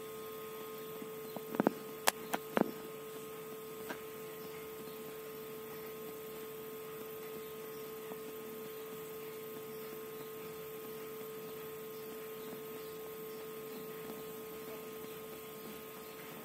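A steady hum at one pitch, with a quick run of sharp clicks about two seconds in.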